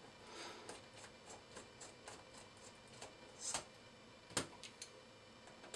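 Faint scattered clicks and light taps of small metal hardware and a hex driver on an RC car's steering linkage, with a brief scrape about three and a half seconds in and a sharper click just after.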